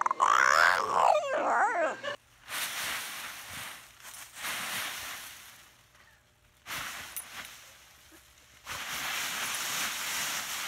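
A bulldog whining in loud, wavering cries that rise and fall for about two seconds. Then dry fallen leaves crunch and rustle in three spells as a bulldog plows through a deep pile of them.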